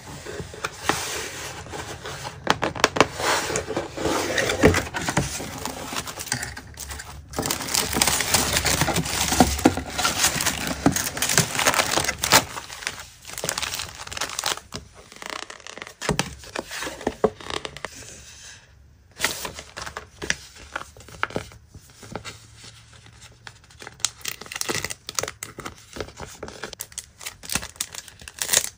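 Packaging being unboxed by hand: a cardboard mailer box and paper being opened, and sticker and note-paper packs in clear plastic sleeves crinkling and rustling, with some tearing. The handling is busy for about the first twelve seconds, then lighter and sparser, with a short gap partway through the second half.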